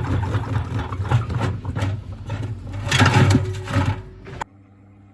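Gorenje SensoCare washing machine running with heavy bricks in the drum: a loud rumble with repeated hard knocks as the bricks slam around. It cuts off suddenly about four and a half seconds in, leaving only a faint steady hum.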